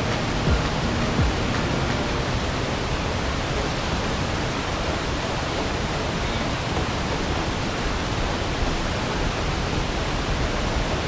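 Steady rush of river water pouring over a weir, an even, unbroken hiss.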